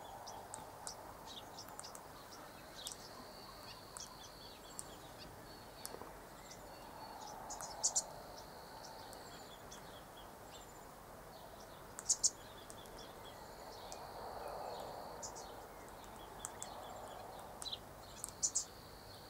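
Faint outdoor ambience: a steady high insect trill that comes and goes in stretches of a few seconds, with scattered short high bird chirps and a few sharp clicks.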